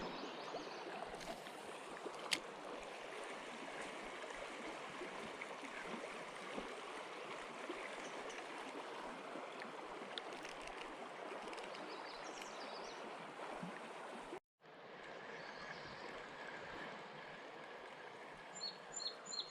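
River water running steadily over a riffle, with one sharp click about two seconds in. The sound drops out for a moment about three-quarters of the way through, and faint high chirps come in near the end.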